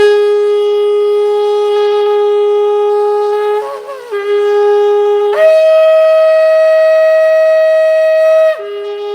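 An 82.5 cm shofar with a small mouthpiece blown in long, loud held notes. A low note wavers briefly about four seconds in, then jumps up to a higher note held about three seconds, and drops back to the low note near the end.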